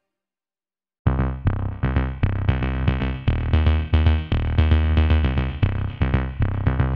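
Electronic background music with a drum-machine beat, heavy bass and synthesizer. It starts suddenly about a second in, after silence.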